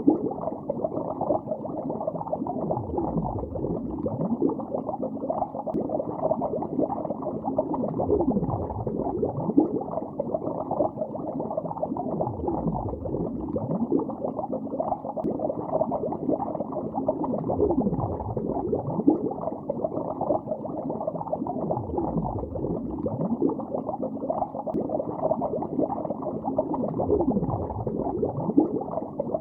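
Bubbles streaming through lake water, heard from underwater: a steady, dense bubbling, muffled and without any high end, with low swooping sweeps recurring every few seconds.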